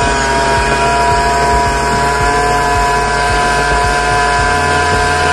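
Motorboat engine running at a steady high speed while towing, with a steady whine over the rush of its wake.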